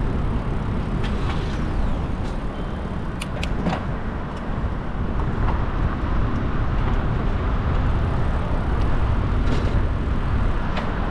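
Steady city traffic noise with the rush of moving air, heard from a bicycle riding among cars on a busy street. A few short sharp clicks sound a little over three seconds in.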